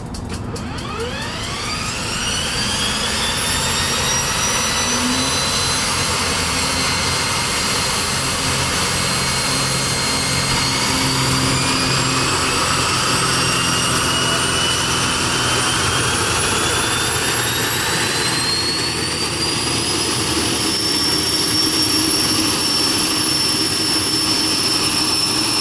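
Kodiak 100's Pratt & Whitney PT6A turboprop starting up. A high turbine whine sweeps steeply up in the first couple of seconds, then a second whine climbs slowly over several seconds and levels off as the engine settles at idle with the propeller turning.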